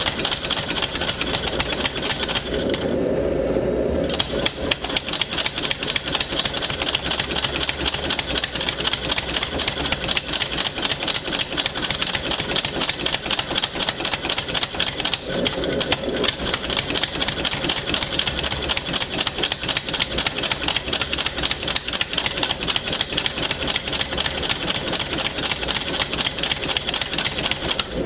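Benchtop mechanical power hammer, belt-driven by an electric motor, pounding a red-hot metal bar in a rapid, steady run of blows. The blows let up briefly about three seconds in and again around fifteen seconds, leaving the machine's hum.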